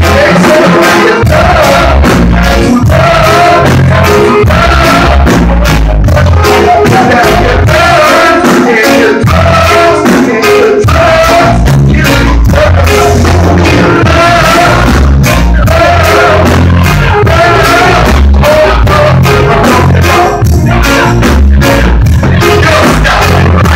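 Live reggae band playing loudly: drum kit, bass, electric guitar and keyboard, with a lead vocal over the groove.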